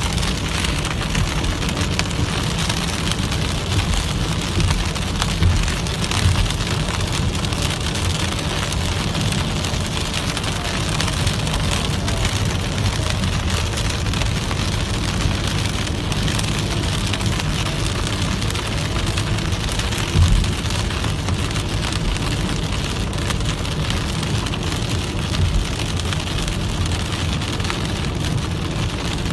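Heavy rain pelting a moving car's windshield and roof, heard from inside the cabin, over the steady low rumble of the car driving on the wet road.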